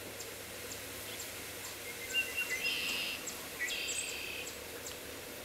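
Small birds chirping in two short bursts, about two seconds and three and a half seconds in. Under them are a steady outdoor hiss and faint high ticking about twice a second.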